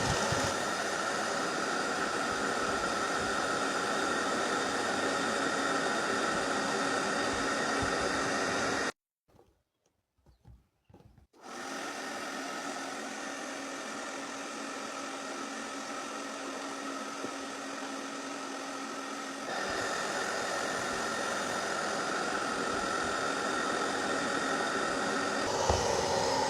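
Vacuum cleaner motor running with a steady whine. It cuts out for about two seconds a third of the way in, comes back a little quieter, and gets louder again about three quarters of the way through.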